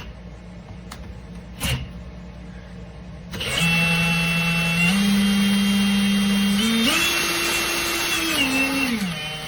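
Power drill spinning an auger wood bit: the motor starts about three seconds in, its whine stepping up in pitch twice as the speed rises, then winding down and stopping near the end. A single knock comes before it, about a second and a half in.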